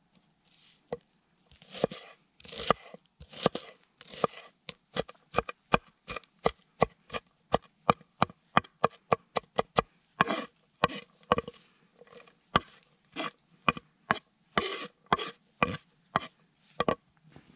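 Knife dicing an onion on a wooden cutting board: a long run of sharp knocks of the blade on the board, about three a second, with a few longer crunching cuts through the onion about two seconds in.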